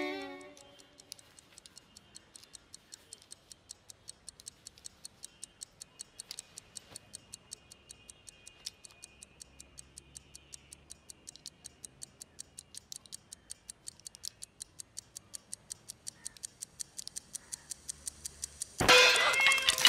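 Pocket watch ticking steadily, about five ticks a second, slowly growing louder. Near the end, a sudden loud cat yowl with a crash cuts in.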